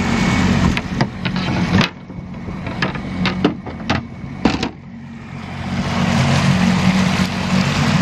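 Suzuki 40 outboard motor running steadily at cruise, with water rushing along the hull. For about three seconds in the middle the sound drops and a few sharp knocks and clicks come through as the hatches are handled.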